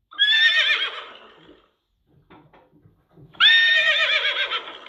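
A horse whinnying twice, about three seconds apart. Each call is a high, quavering neigh that trails off over about a second and a half.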